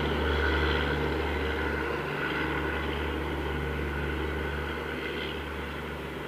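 Humsafar Express passenger train receding after passing: a steady low rumble of the coaches running on the rails that fades gradually.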